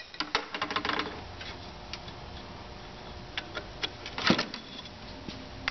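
Steel and friction clutch plates of a GM 440-T4 second gear clutch clicking and clinking against each other and the clutch drum as they are stacked in by hand: a quick run of light clicks about a second long at the start, then a few scattered clicks and a louder clatter a little after four seconds in.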